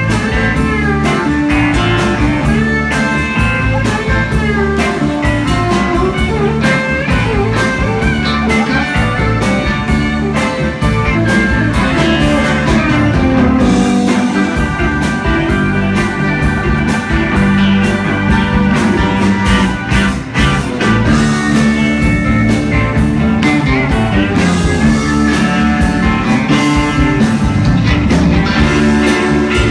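Live country band playing an instrumental stretch without vocals: guitars and pedal steel guitar over bass and a steady drumbeat.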